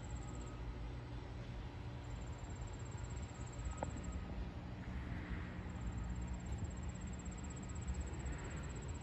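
Outdoor summer ambience: insects trilling in a thin, high, pulsing buzz that comes and goes in stretches of a second or more, over a steady low rumble.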